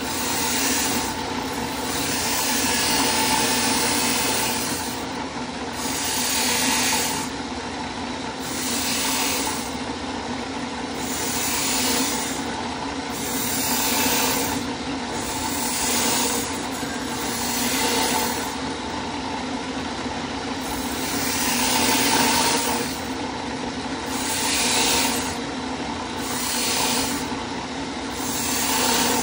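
Drill press running a wire cup brush against the inside of a rusty sheet-steel pan: a steady motor hum under a harsh scratching that swells and fades every two or three seconds as the brush is pressed into the rust and eased off.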